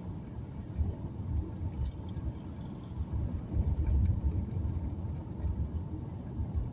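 Car driving along a road: a low, uneven rumble of engine and road noise that swells and eases, loudest about four seconds in.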